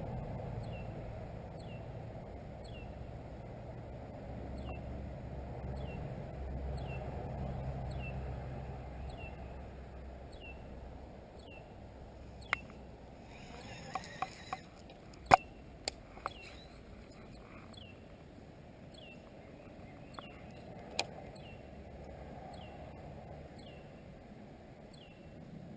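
Outdoor ambience with a short, high, falling chirp repeating about once a second, like a small animal's call. A low hum fades out about nine seconds in. Several sharp knocks fall around the middle, the loudest about fifteen seconds in.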